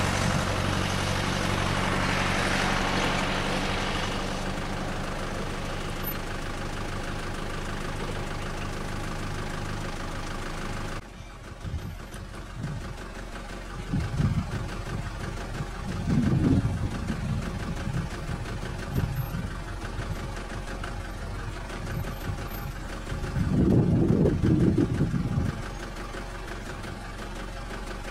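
A motor vehicle's engine idling close by, steady, with a hiss that fades over the first few seconds. About eleven seconds in the sound drops suddenly to a quieter idle, broken by a few short low rumbles.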